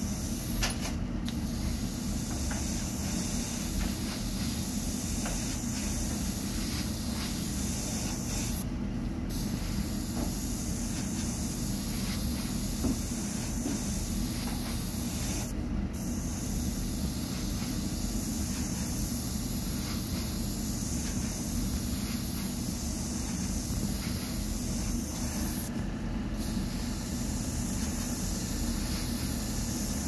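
Gravity-feed airbrush spraying paint, a steady hiss of compressed air that cuts out briefly about four times.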